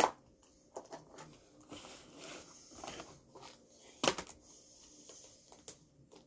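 Plastic container and clear plastic wrapping being handled as a lump of orange modelling dough is taken out. There is a sharp plastic snap at the start, then light rustling and clicks, and a louder plastic crack about four seconds in.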